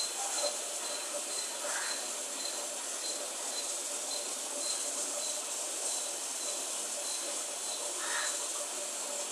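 Insect chirping: a faint high note repeating evenly about twice a second over a steady hiss and a faint low hum.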